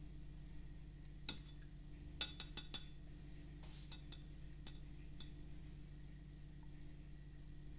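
Paintbrush clinking against the rim of a water cup as it is rinsed: one clink about a second in, a quick run of four a second later, a short swish of water, then a few lighter clinks, over a low steady hum.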